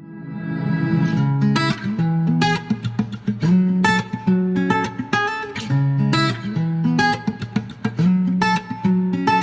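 Background music led by an acoustic guitar playing plucked and strummed chords, fading in over the first second.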